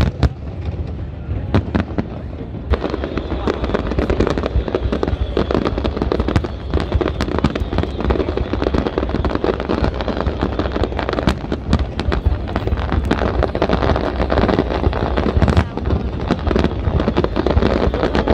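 Aerial firework shells bursting in quick succession, bangs and crackle overlapping. The barrage grows denser about three seconds in and stays dense.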